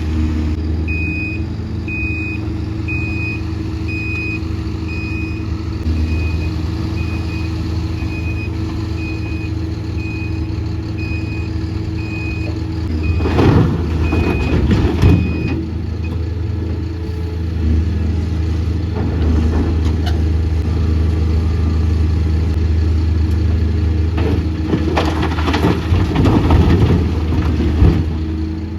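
Heavy diesel engine running steadily while a reversing alarm beeps about once a second, stopping about halfway through. Two louder, rough noisy spells come over the engine, one a little before the midpoint and a longer one near the end.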